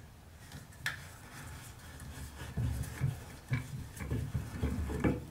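Old shower head being twisted off the threaded shower arm by hand. A couple of sharp clicks come first, then, from about halfway, a run of short low rubbing, creaking bursts as the head turns on its threads.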